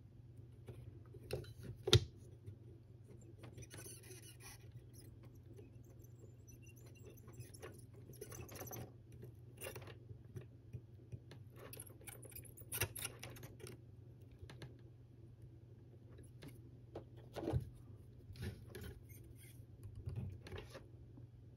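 Faint scattered clicks and light taps of small tools and parts being handled during bench soldering on a battery pack, with one sharper click about two seconds in, over a steady low hum.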